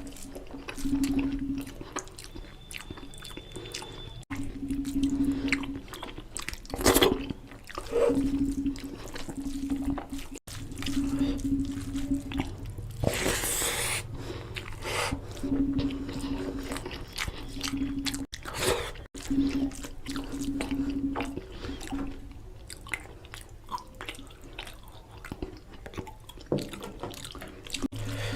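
A person eating mutton curry with rice close to the microphone: chewing, with wet smacking and squelching mouth sounds and frequent small clicks. There is a louder noisy burst about halfway through.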